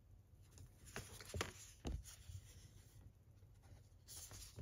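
Faint handling of stiff matte art cards: a few soft taps between one and two seconds in as the cards knock against each other, and a brief rustle of card sliding on card near the end.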